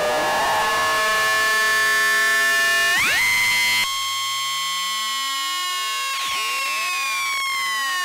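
Flight of Harmony Infernal Noise Machine desktop analog synthesizer, self-patched, sounding a steady high tone with layered overtones and faint sweeping whistles while its oscillator knobs are turned. About three seconds in one tone jumps up in pitch, the low part cuts out suddenly a moment later, and a higher tone glides down near the end.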